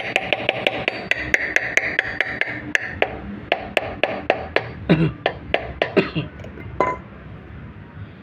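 Rapid, even hammer taps on a water pump's impeller, about four or five a second, seating it on the motor shaft. About halfway the taps slow and grow louder, then stop near the end.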